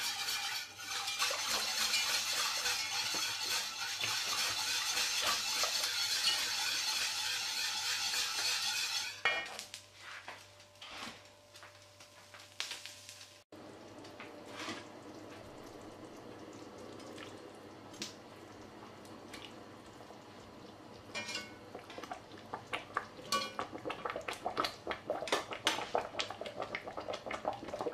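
A spoon stirring gravy in an enamelled cast-iron pot for about the first nine seconds. After that the thick gravy simmers quietly, with small popping bubbles that come more often near the end.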